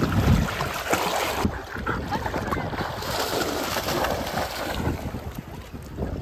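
Shallow sea water splashing and sloshing as a large dog swims and a person wades through it, with wind buffeting the microphone, heaviest at the start.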